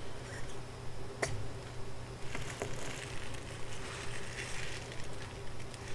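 Metal fountain pens being handled, with one sharp metallic click about a second in and a fainter click a little later, over a steady low hum.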